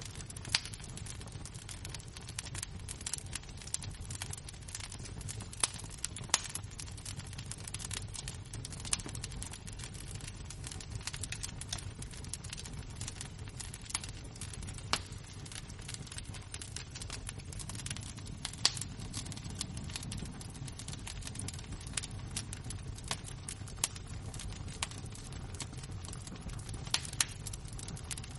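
Burning embers crackling: irregular sharp pops and snaps, a few of them louder, over a low steady rumble.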